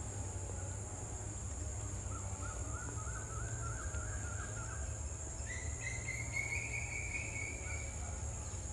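Outdoor ambience with birdsong: a fast warbling phrase about two seconds in, then a higher, longer call from about halfway to near the end. Under it runs a steady high insect hiss and a low rumble.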